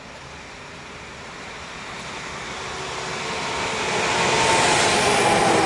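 Pesa Elf 2 (27WEb) electric multiple unit approaching and running past close by. Its running noise grows steadily louder over about four seconds and then holds steady as the cars go by.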